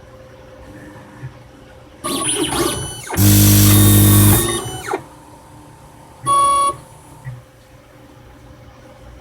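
The Autostainer 360 automated slide stainer's robotic arm mechanism running: a motor whir starts about two seconds in, then a loud steady buzz lasting about a second. A short high tone follows around six seconds in.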